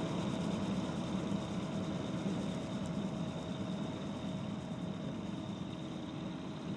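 New Holland tractor running steadily, heard from inside the cab, with a constant hum and a faint steady whine over it.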